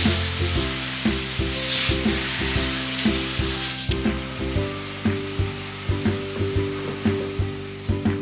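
Food sizzling in a hot frying pan, loud at first and dying down after about four seconds, over background music with a steady beat.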